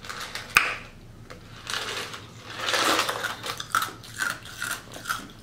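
Someone drinking in gulps straight from a large styrofoam cup: a sharp click about half a second in, then a row of short swallowing sounds in the second half.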